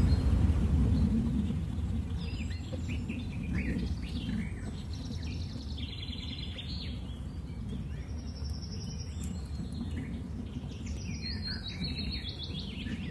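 Birds chirping in short, repeated calls over a steady low background rumble.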